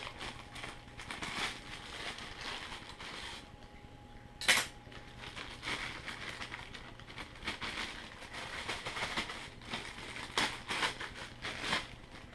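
Clear plastic bag crinkling and rustling in irregular bursts as carbon-fibre quadcopter frame plates are slid out of it, with one sharp click about four and a half seconds in.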